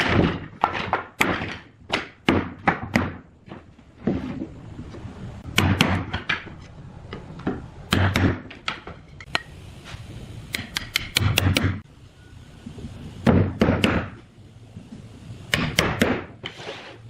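Irregular knocks and thuds from handling and tapping wooden workpieces, some in quick clusters of sharp taps, over a faint low hum.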